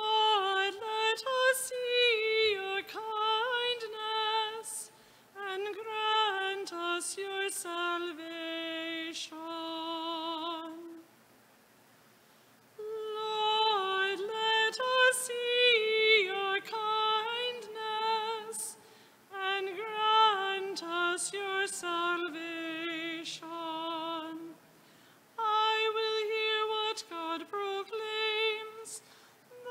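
A woman's solo voice singing the responsorial psalm refrain, in phrases of a few seconds with short pauses between them and a light vibrato on held notes.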